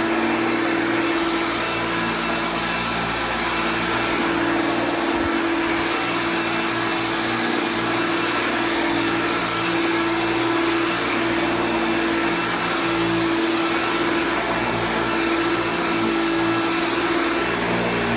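Hoover Dial-A-Matic 1149 vacuum cleaner running steadily: an even motor hum and airflow rush with a constant whine.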